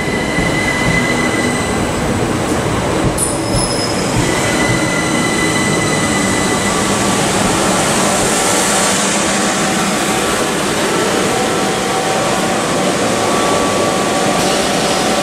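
Southeastern electric multiple unit running in along the platform close by and slowing, a steady loud rumble of wheels on rail with high steady whistling and squealing tones from the wheels, brakes and traction gear.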